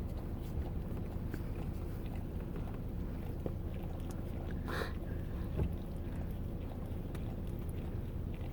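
A dog licking and chewing at a puppy cone: faint, scattered wet licks and smacks, with one brief louder rustle about five seconds in, over a steady low rumble.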